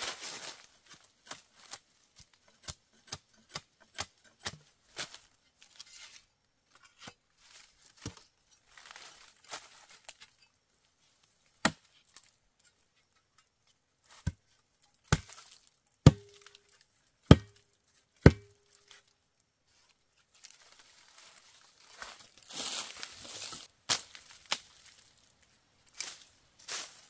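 Machete cutting a wooden stick: a run of light, sharp cuts, then several heavier blows in the middle, the last three leaving a brief ringing tone. Near the end, swishing and rustling as the blade slashes through grass and brush.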